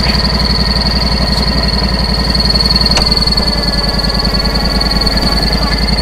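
Portable band sawmill's engine running steadily with a rapid low throb and a constant high-pitched whine, and one sharp click about halfway through.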